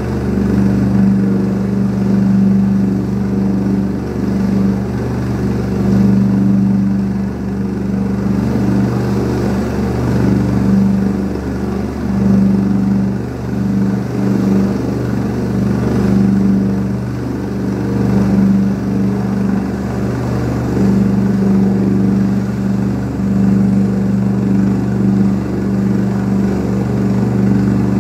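Rescue helicopter running steadily, its turbine engines and rotors giving a constant low drone that swells and dips slightly in loudness.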